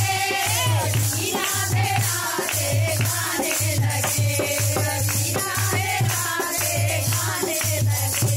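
A group of women singing a Hindi Krishna bhajan, a lead voice with others joining in, over jingling hand percussion and a low beat about once a second.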